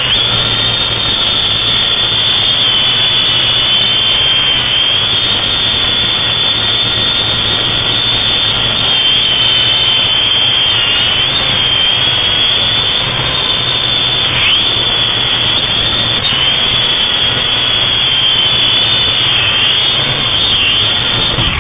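A loud, steady rushing noise with a high, wavering whine riding over it.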